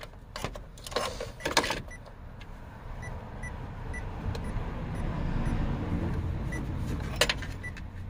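Power Probe ECT3000 short-detector receiver giving short high beeps about twice a second, pausing midway and starting again near the end. The beeping comes and goes as the receiver is moved along the harness, which is the sign of an intermittent break in the traced wire. A few handling knocks and a low rustle sound alongside.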